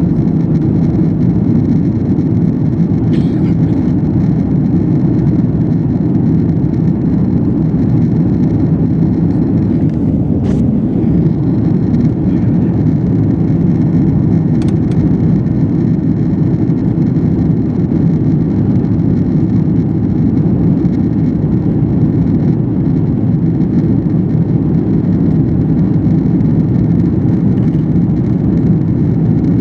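Jet airliner cabin noise during the climb after takeoff: a steady low roar of engines and rushing air inside the cabin, with a few faint clicks.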